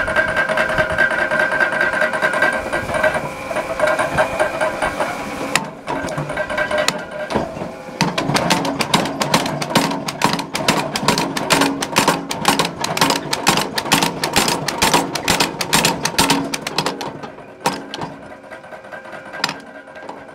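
Belt-driven power hammer forging a hot steel bar in a fish-tail die: a fast run of sharp, even blows, several a second, for about nine seconds. Before and after the blows there is a steady machine hum.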